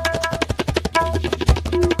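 Background music: fast hand-drum percussion over held melodic notes and a deep bass line.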